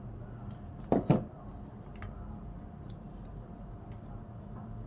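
Two sharp clicks in quick succession about a second in, from parts being handled on the exposed clutch side of a stripped-down Stihl 440 chainsaw, followed by a few faint ticks over a steady low hum.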